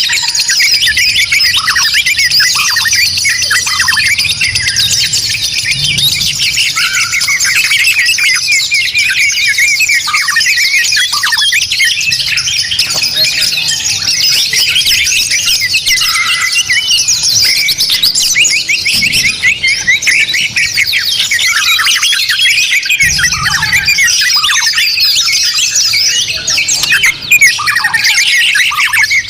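Many songbirds singing at once: a dense, unbroken chorus of fast overlapping chirps, whistles and trills.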